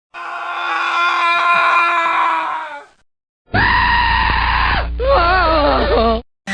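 Two separate horror scream sound effects, played back to back with a short silence between them. The first is one held scream lasting nearly three seconds. The second starts high, drops sharply in pitch, then carries on as a wavering wail that cuts off suddenly.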